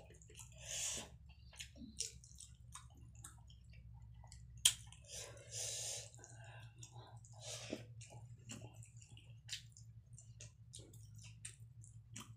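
Close-miked chewing of rice, red lentil dal and fried fish, with wet mouth clicks and the soft squish of rice being mixed by hand on the tray. A steady low hum runs underneath.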